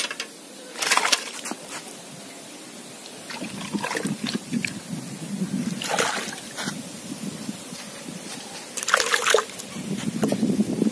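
Water splashing and sloshing in a metal bucket of pond water holding live, freshly caught rui (rohu) fish, as fish are dropped in and a hand moves among them. Four sharp splashes come about a second apart at first, then near the middle and near the end, with lower sloshing between.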